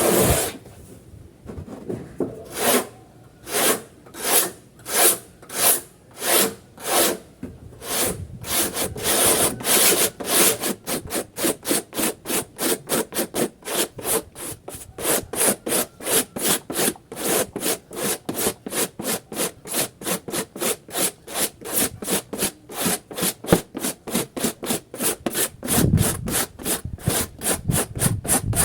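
Plastic washing-machine control panel being sanded by hand with rasping back-and-forth strokes. The strokes come about one and a half a second at first, then quicken to about three a second from around ten seconds in.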